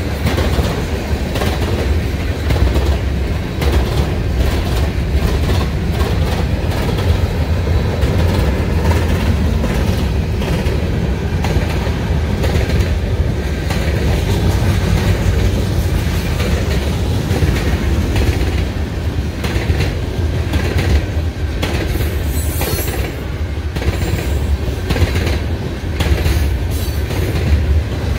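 Freight cars, tank cars and covered hoppers, rolling past close by: a steady heavy rumble with the rapid clickety-clack of steel wheels over rail joints.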